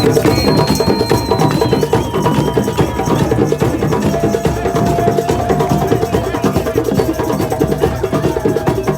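Drum beaten in a fast, dense, steady rhythm of many strokes a second, with a few thin held tones sounding above the beating.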